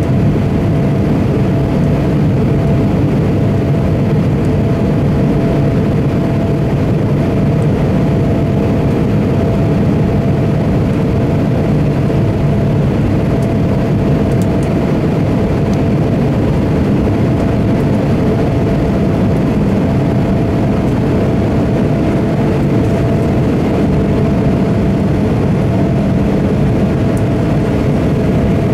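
Steady cabin noise inside an Embraer E170 in flight: the drone of its wing-mounted GE CF34-8E turbofans and the rush of air past the fuselage, a low rumble with a steady mid-pitched hum on top.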